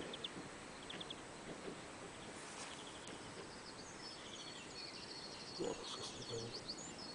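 Faint outdoor background noise with distant birds chirping, mostly in the second half.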